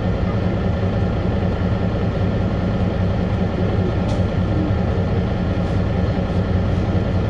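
Cabin of a city bus with its drive running: a steady low drone with road noise.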